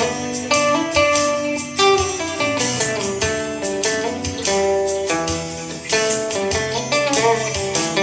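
Acoustic guitar played solo, an instrumental passage of picked single notes and chords in a steady rhythm, with a few notes bent in pitch.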